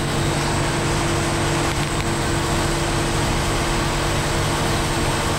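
Steady mechanical hum with an even rushing noise and a constant low drone, the background running of kitchen machinery such as ventilation or refrigeration.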